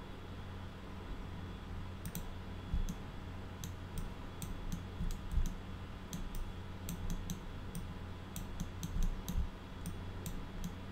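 Computer mouse and keyboard clicks in quick, irregular runs, starting about two seconds in, over a steady low hum.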